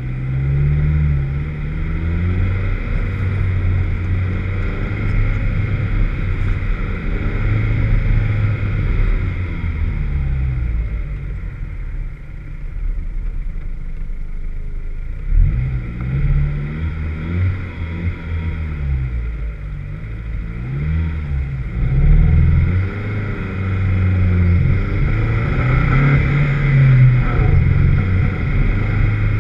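Vauxhall VX220's four-cylinder engine driven hard, its revs climbing and dropping again and again as it pulls through the gears and lifts off. The engine has a misfire.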